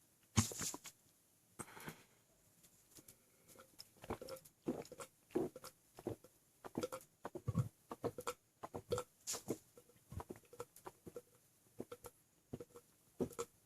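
A person loudly gulping down milk, swallow after swallow in quick succession, about two or three gulps a second, after a single sharp gulp near the start.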